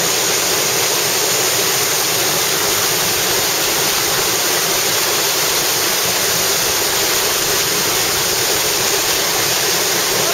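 Steady, loud rush of whitewater at a river waterfall.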